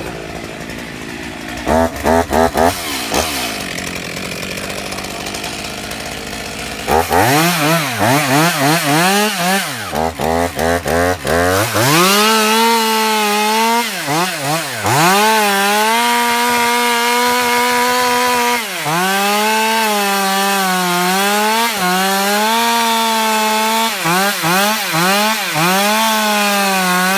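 Two-stroke chainsaw idling with a couple of quick throttle blips, then revving in short bursts from about seven seconds in. From about twelve seconds it runs at full throttle cutting through a thick tree trunk, the engine pitch dipping and recovering several times under load.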